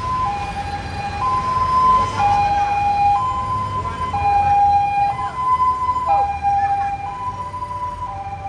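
Two-tone siren alternating between a high and a low note, each held about a second.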